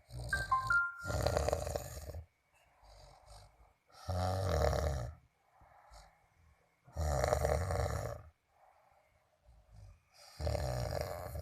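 Snoring: four loud, rattling snores about three seconds apart, with softer breathing between them. Brief high whistling tones come in with the first snore.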